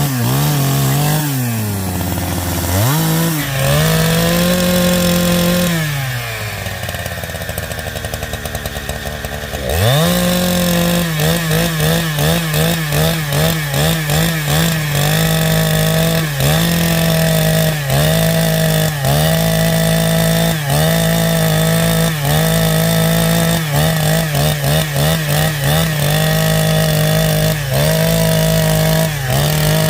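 Two-stroke chainsaw running at high revs, dropping to a fluttering idle for a few seconds, then revved back up. After that the engine note dips briefly again and again as the saw works through wood.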